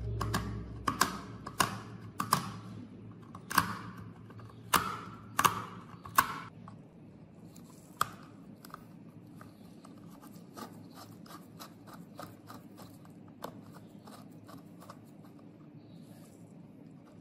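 Screwdriver working a rusted screw in an old mini air blower's corroded metal casing: a series of sharp scraping clicks, then a quicker run of faint ticks.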